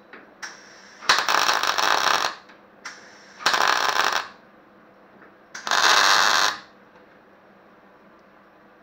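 MIG welder arc crackling in three bursts of about a second each, with a couple of brief spurts between, as short runs of weld are laid on a steel bump stop bracket to fill a crack and build up thin metal.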